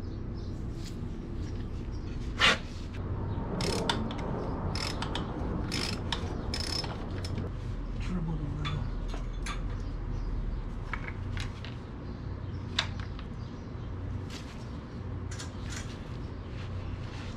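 Irregular metal clicks and clinks from a ratchet and cup-style oil filter wrench working at a motorcycle's oil filter, over a low steady hum.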